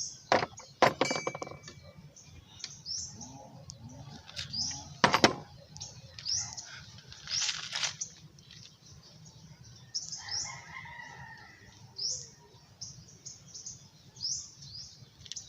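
Small birds chirping over and over, with a few sharp clicks and knocks of hand tools on metal: the loudest come in the first second and about five seconds in, as the valve adjuster on a 125 cc scooter engine is worked and tightened.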